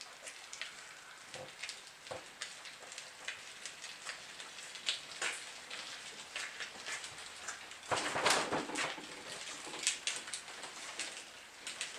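Wheels of a PVC boat dolly rolling over wet pavement, a light, irregular crackling patter, with a louder rolling rush about eight seconds in as they cross onto the garage's concrete floor.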